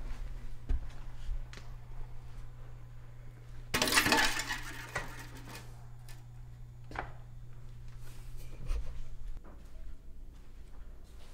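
Metal lockers being handled: scattered metallic clicks and clinks, with one loud scraping rattle about four seconds in, over a steady low hum.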